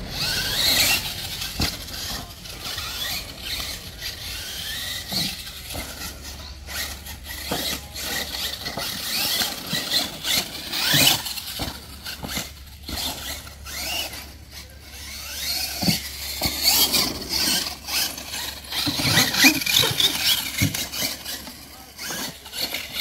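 Electric RC monster truck on a Losi LMT chassis driving hard over dirt. Its motor and gears whine high, rising and falling over and over with the throttle, and it lands from jumps with repeated sharp knocks.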